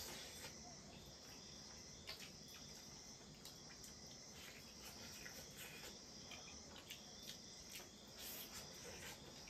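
Faint, steady chirping of crickets, with scattered soft clicks and smacks of people eating by hand from metal plates.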